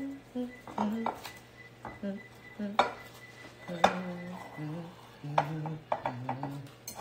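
Sharp clinks and taps against a glass baking dish while it is greased with a stick of butter, over a woman humming a tune in steady low notes.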